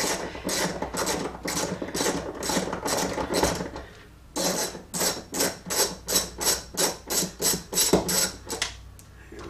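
Hand ratchet with a socket extension being swung back and forth, backing out a bolt in a car's center console: quick bursts of clicking, about three or four strokes a second, stopping briefly around four seconds in and then going on.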